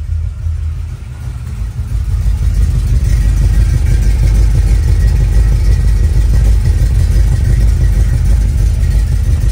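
GM Performance crate 350 small-block V8 idling while still warming up from a cold start, its exhaust running through Thrush welded mufflers with a steady, beefy low rumble. It grows louder about two seconds in.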